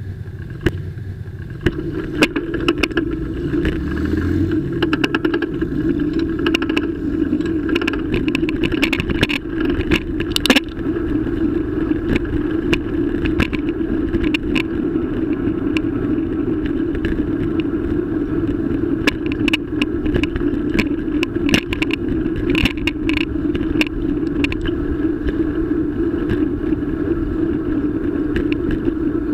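Continuous ride noise from a bike-mounted camera: a steady hum with frequent sharp rattles and knocks from the camera shaking in its mount over the road surface. In the first few seconds a nearby car's engine rises in pitch as it pulls away.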